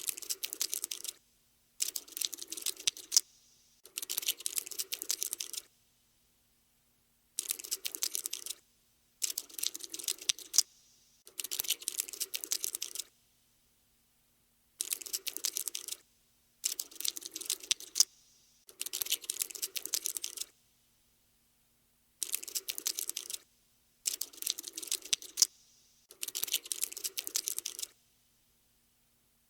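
Cockroach scuttling sound effect: rapid dry clicking and scratching, in about a dozen bursts of one to two seconds each, with silent gaps between.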